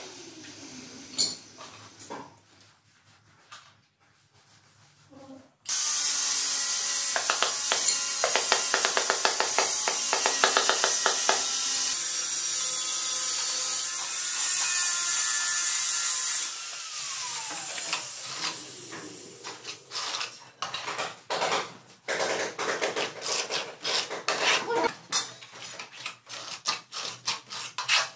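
Tile-setting work: a trowel scraping and spreading tile adhesive onto a porcelain skirting strip in rough, rhythmic strokes, then a run of sharp taps and knocks as the strip is handled and set against the wall.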